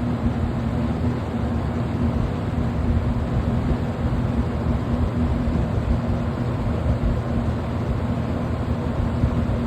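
A 20-inch Kmart box fan, basically a Lakewood P23, running steadily on its high setting: a constant rush of moving air over a low, even motor hum.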